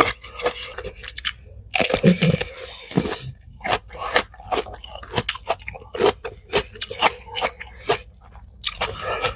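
Close-up chewing of crunchy food, with sharp crunches about once or twice a second and a denser run of crunching about two seconds in.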